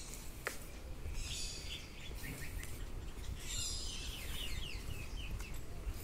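Songbirds chirping and calling in quick, short notes, busiest in the middle of the stretch, over a steady low outdoor rumble, with one sharp click about half a second in.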